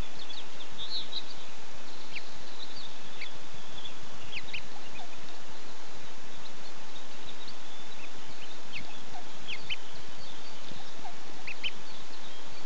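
Ducklings peeping from beneath their brooding mother: many short, high peeps scattered irregularly over a steady hiss.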